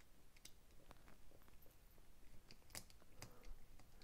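Faint, irregular clicks of a screwdriver bit working a small screw in a folding knife's handle, with the knife handled in the hand.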